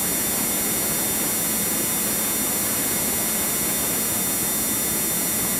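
Loud, steady hiss of an old videotape recording's noise floor, with several faint fixed high tones running through it. No clear voice stands out.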